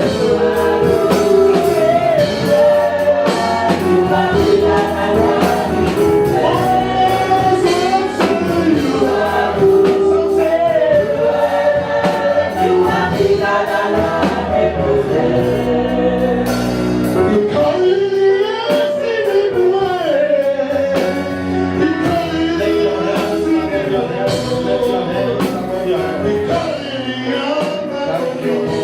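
Gospel music: a choir singing a melody over a steady bass line and percussion.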